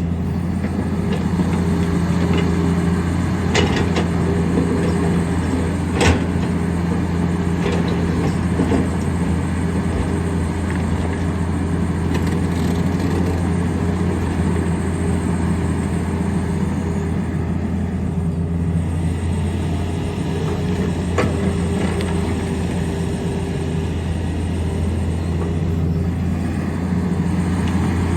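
A Tata Hitachi excavator's diesel engine running steadily while it works rock, with a few sharp knocks: one a few seconds in, a louder one about six seconds in, and another near the three-quarter mark.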